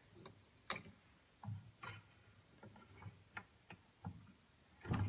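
Indexing dial of a home-built table saw fence clicking through its spring-and-steel-ball detent as it is turned a notch at a time, each click a 1/64-inch step of the fence. A handful of separate light clicks, the sharpest about a second in and another near two seconds in.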